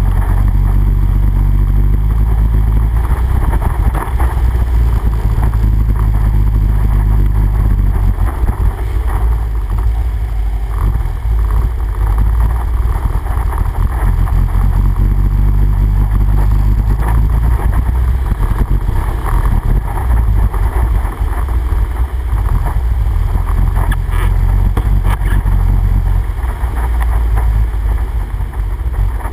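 ATV engine running steadily as the quad rides through shallow water, with the splash of the tyres over it.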